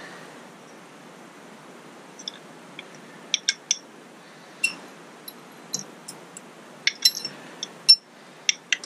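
Light, sharp metallic clicks and clinks as an outboard motor's distributor housing and its small parts are handled, coming irregularly from about two seconds in.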